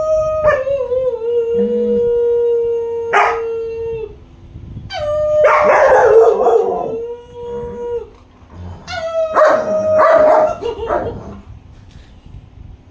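Two German Shepherds howling, with a woman howling along: long drawn-out howls that sag slightly in pitch, in three bouts, the second and third with several voices overlapping. It dies away near the end.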